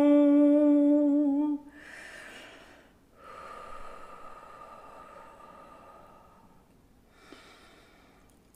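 A woman's held vocal tone (toning), one steady sung pitch rich in overtones, ends about a second and a half in. Audible breathing follows: an inhale, a long breathy exhale, and a softer breath near the end.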